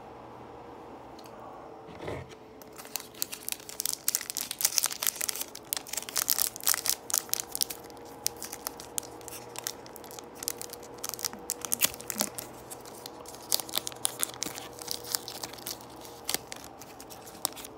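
Foil Pokémon booster pack wrapper crinkling and tearing as it is handled and opened by hand. A dense run of sharp crackles starts about two seconds in, after a soft thump.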